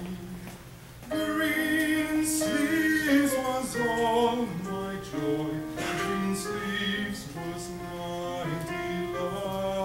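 Voices singing a slow part-song with long held notes, a man's voice among them. The singing is quieter at first and grows fuller and louder about a second in.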